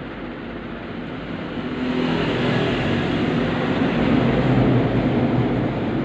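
Engine noise of a passing motor vehicle, swelling about two seconds in and easing off near the end, over a steady low background hum.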